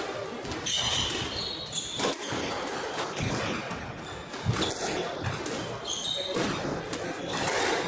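Squash rally: the ball smacking off rackets and the court walls at irregular intervals, with rubber-soled shoes squeaking on the wooden court floor.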